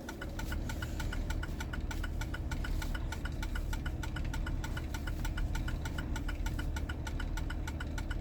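2004 Jeep Grand Cherokee running under way, with a rapid, steady clicking of about eight to ten clicks a second over the engine's low rumble. The rapid clicking is unusual and not how the vehicle normally runs.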